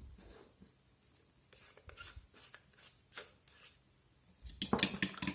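A spice mill is twisted in a few short rasping grinds as the eggs are seasoned. Near the end a fast, louder clatter of beating starts, a fork on the bowl mixing the eggs.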